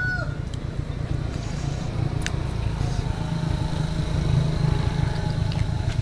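A vehicle engine running steadily, a low even hum with no change in pitch.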